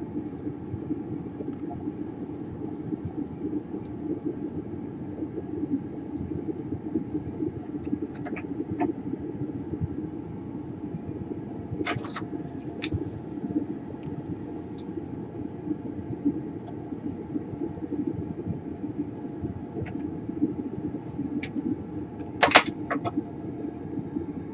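Steady low mechanical hum, like a fan or motor running, with a few sharp clicks scattered through it, the loudest near the end.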